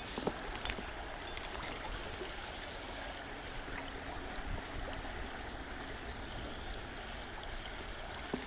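Steady rush of flowing river water, with a few faint clicks near the start.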